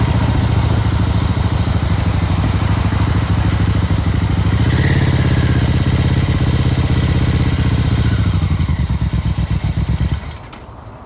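Yamaha motorcycle engine running while riding, with wind rush over the microphone; after about eight seconds the beat slows to a looser, more spaced pulse as the bike slows, and the sound cuts off suddenly about ten seconds in.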